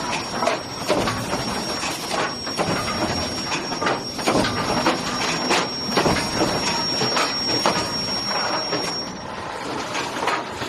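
Automatic wooden pallet deck nailing machine running: a dense, irregular clatter of nailing strokes and knocks over steady machine noise, with a thin high whine that stops shortly before the end.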